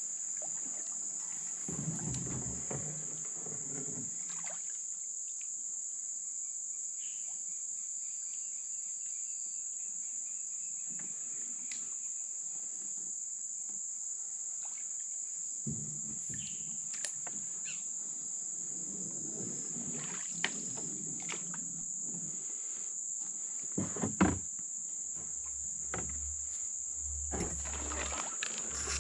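Steady, high-pitched drone of insects in flooded forest, with a canoe paddle swishing through the water now and then and a couple of sharp knocks late on, the loudest sounds here.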